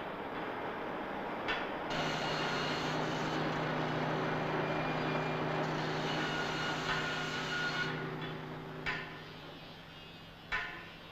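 Building-site work: a few sharp hammer knocks, and between them a motor-driven machine running with a steady hum for several seconds before it fades out.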